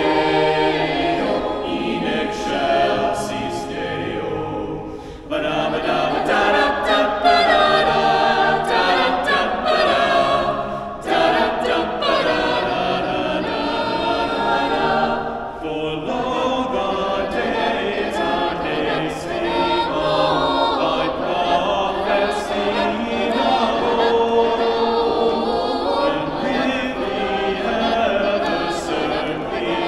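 Mixed-voice choir singing a cappella in a church, in sustained phrases with brief breaths between them about five, eleven and fifteen seconds in.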